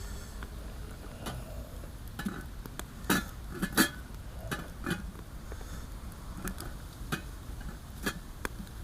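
Camp cookware and cutlery being handled: irregular clinks and knocks of utensils against pots, the two loudest a little over three and nearly four seconds in.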